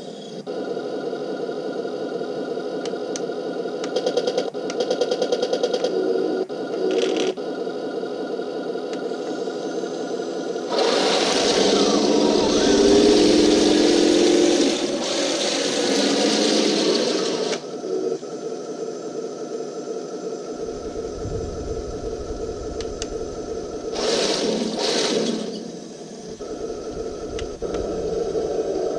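RC Walker Bulldog light tank model running, its small electric drive motors and gearboxes whirring steadily. It grows louder for about six seconds in the middle as the tank drives harder.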